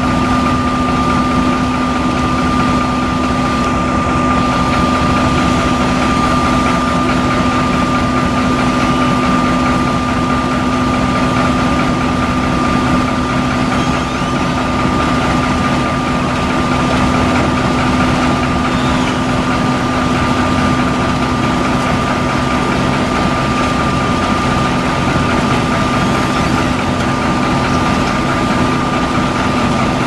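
Sumitomo HA60C asphalt paver's diesel engine running steadily while paving. The drone stays at a constant pitch, with a steady high whine over it.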